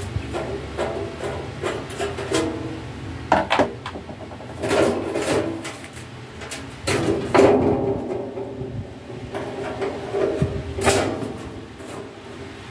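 Hand work on an arc welder's sheet-metal casing: a screwdriver taking out the cover screws, then the metal cover being handled and shifted. Irregular clicks, scraping and rattling, with a few sharper knocks.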